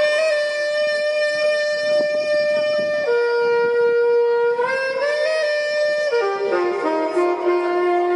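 Saxophone playing a slow melody of long held notes as background music, sliding up into the first note, then a quicker run of falling notes about six seconds in.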